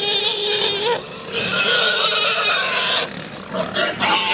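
Wild boar squealing in a herd: long, high, wavering squeals that break off about a second in and again after three seconds, with short squeals near the end.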